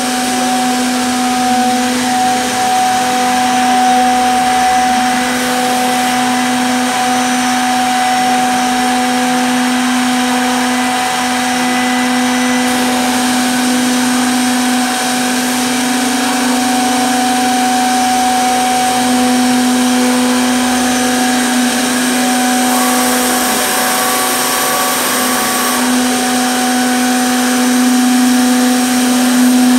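High-speed spindle motors of a Zhan Fei SDC-1500 CNC mortising machine running with a steady whine.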